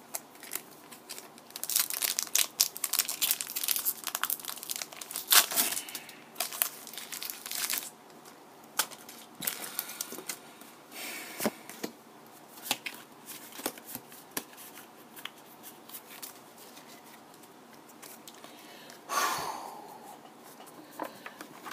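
Pokémon booster pack's foil wrapper being torn open and crinkled: a dense run of crackling through the first third, then scattered crinkles and a short rustle near the end.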